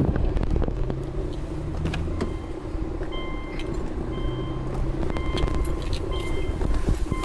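Car's electronic warning chime beeping about once a second from about three seconds in, in a 2008-era Subaru Legacy B4 with its driver's door open and ignition on before the engine is started. Before it come clicks and knocks of the door being opened, all over a steady low rumble.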